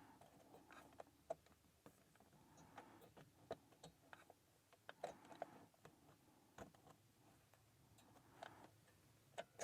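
Faint, irregular clicks of a lock box's combination number wheels being turned by hand while feeling for the notch of each digit.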